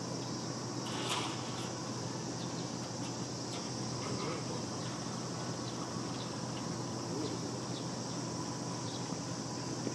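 Steady high-pitched insect chorus in the outdoor air, with a brief faint rustle about a second in.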